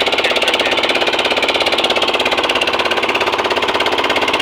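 Fishing boat's engine running steadily under way, with a fast, even beat.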